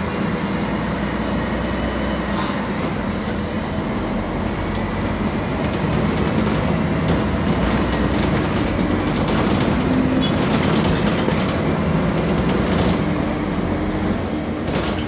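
Mercedes-Benz OM-457 LA six-cylinder diesel of an articulated city bus running under way, heard from inside the cabin as a steady drone. Through the middle it carries a run of clicks and rattles, and its pitch rises a little partway through.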